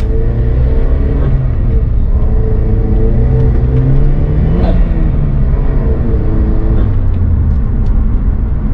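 Pontiac Solstice GXP's turbocharged 2.0-litre four-cylinder engine, heard from inside the cabin, pulling through the gears of its manual gearbox: the engine note climbs, changes sharply at a gear shift about four and a half seconds in, then climbs again, over steady road noise.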